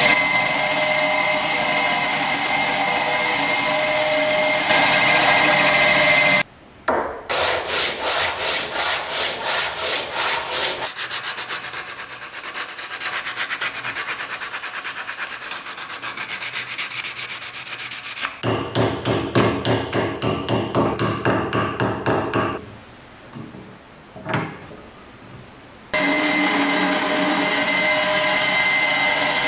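Drill press running and a spade bit boring into a wooden block, a steady whine. Then wood being hand-sanded with sandpaper on a block in quick back-and-forth strokes, a few a second. Near the end the drill press whines and bores into wood again.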